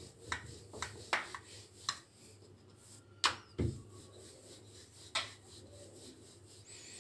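Wooden rolling pin rolling out dough on a marble rolling board, with a string of irregular light knocks and clicks as the pin meets the board, the loudest just over three seconds in.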